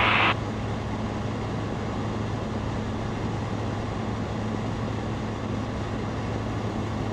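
Zenith STOL CH701's Rotax 912ULS engine and propeller in cruise flight: a steady, unchanging drone with a low hum.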